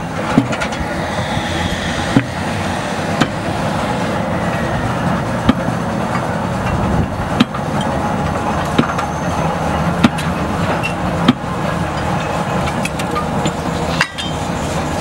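Track workers' tools striking rails and sleepers, sharp knocks about every one to two seconds, over the steady running of a Z152 steam crane.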